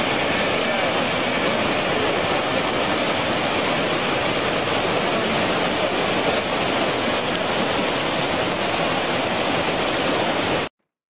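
Steady rushing roar of a swollen whitewater river in flood, cutting off abruptly near the end.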